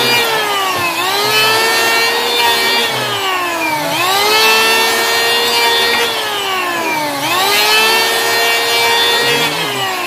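HiKOKI P20SB electric hand planer running and cutting along a wooden board in repeated passes. Its motor whine sags in pitch as the blades bite into the wood and climbs back between passes, about every three seconds.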